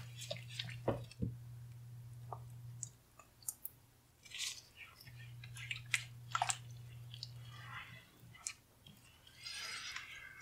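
Spatula stirring thick, creamy alfredo sauce in a pan: soft wet squishes with scattered light clicks of the spatula against the pan, over a low hum that drops out twice.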